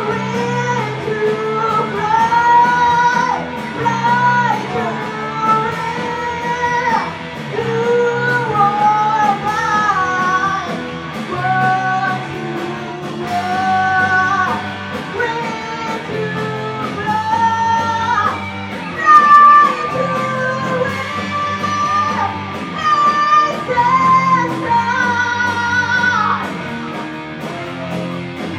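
Live rock band playing a song: a singer carries the melody over electric guitar, bass and drums with regular cymbal hits. Near the end the singing stops and the band plays on.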